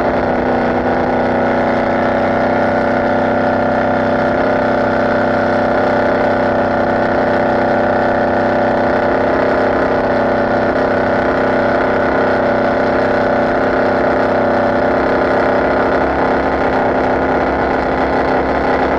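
Open-cockpit race boat's inboard engine running steadily under way, heard from on board, holding one even pitch throughout.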